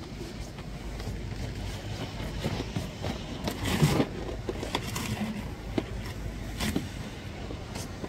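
Ski-slope ambience: a steady rush of noise with faint voices and scattered clicks, and a short, louder burst of noise just before four seconds in.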